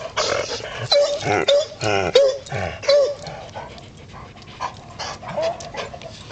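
Dogs vocalizing: the hoarse, breathy barks of a debarked Basset Hound/Golden Retriever mix, which has to gasp for breath as she barks because of the debarking, mixed with another dog's high whines. The calls come in quick, uneven bursts, thinning out in the middle and picking up again near the end.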